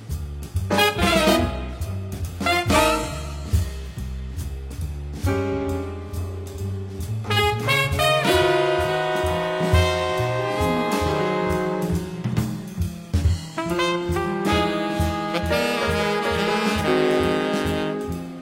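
Instrumental jazz: a horn lead playing long held notes over a bass line and drums.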